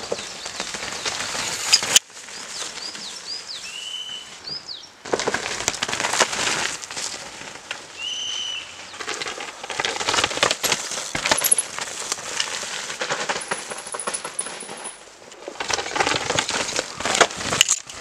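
Downhill mountain bikes passing on a dirt forest trail: tyres crunching and skidding over dirt and roots, with the bikes' chains and frames clattering in quick sharp rattles. In the quieter gaps, small birds chirp a few times, and a high trill comes near the end.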